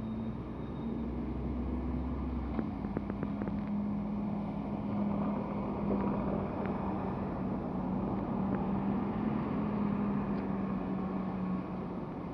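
Tram running round a tight turning loop, heard from on board: a steady motor hum over the rumble of wheels on rail, with a quick run of clicks about three seconds in.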